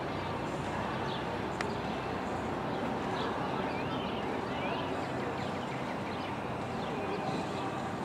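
Hoofbeats of a horse cantering on a sand show-jumping arena over steady outdoor background noise, with faint high chirps throughout and a single sharp click about one and a half seconds in.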